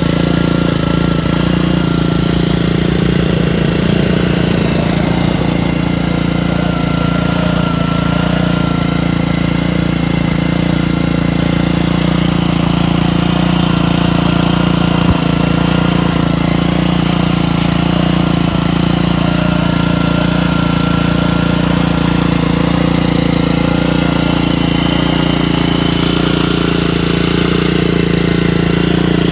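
An engine running steadily, a constant drone with an unchanging pitch, and one short knock about halfway through.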